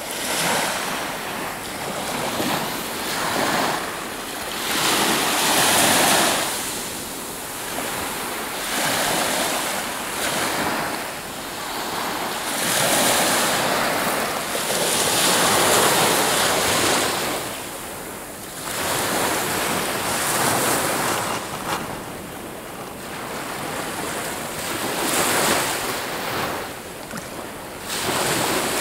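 Small waves breaking and washing up a sand-and-pebble beach, the rush of surf swelling and falling back every few seconds.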